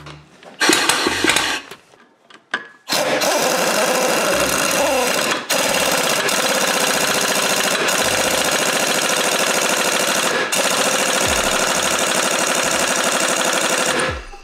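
Impact wrench hammering on a clutch puller bolt, forcing a snowmobile's primary drive clutch off the crankshaft. A short burst about half a second in, then long, near-continuous hammering from about three seconds in, broken twice by brief pauses.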